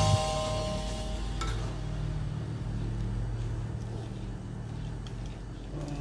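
Metal ladle stirring a simmering fern-and-fish soup in an aluminium wok, with one light knock of the ladle against the pan about a second and a half in. A low steady hum runs underneath.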